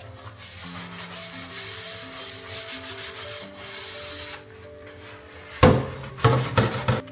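Hand scrubbing of a household surface: a rasping rub of quick strokes that stops a little past four seconds in. It is followed by a sharp knock about five and a half seconds in and a short clatter of knocks near the end, the loudest sounds here, over soft background music.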